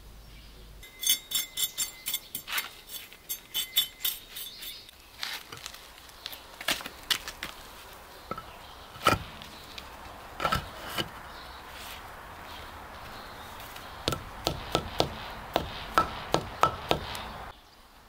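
Basalt stepping stones being shifted and set into crushed gravel by hand: a quick run of ringing clinks in the first few seconds, then scattered knocks of stone on stone with gritty scraping of the gravel, and another run of knocks near the end.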